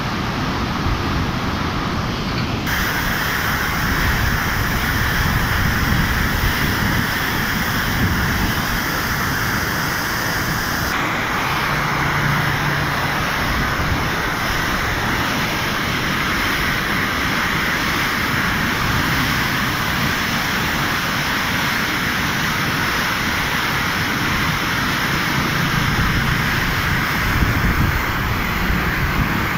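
Muddy floodwater rushing and churning through barrage gates: a steady, loud rush of water whose tone changes abruptly twice, about three and about eleven seconds in.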